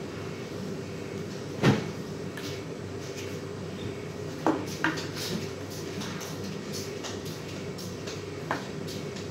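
A few sharp clicks and knocks from wires and small tools being handled on a tabletop: one loud knock about a second and a half in, two more near the middle and a light one near the end, over a steady background hum.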